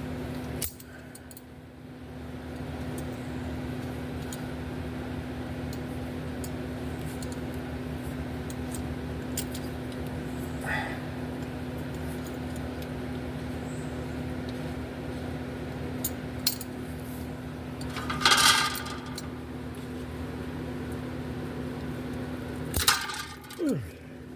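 Handheld torch burning with a steady hiss over a low hum. The hiss drops briefly about a second in, then builds back. A few metal tool clinks come about three-quarters through and near the end.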